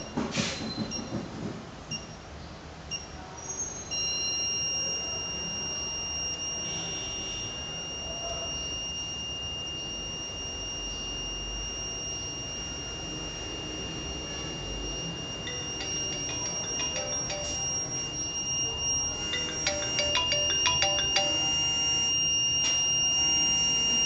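Wireless alarm unit giving a few short high beeps, then a continuous high-pitched alarm tone starting about four seconds in. In the last few seconds, a mobile phone ringtone plays over the tone as the alarm calls out.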